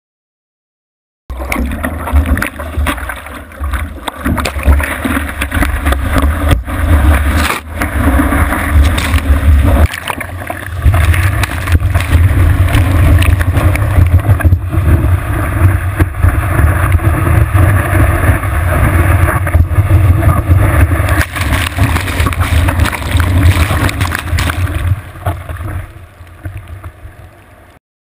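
Water rushing and splashing with wind buffeting the microphone of a camera in the breaking surf, a loud rough rumble that starts suddenly about a second in and fades out near the end.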